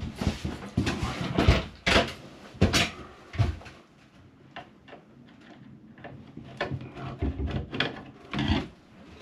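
Handling noise at a metal-cased ceiling light fitting being worked loose by hand: a run of sharp knocks and clunks in the first three seconds or so, a quieter stretch, then more clicks and knocks near the end.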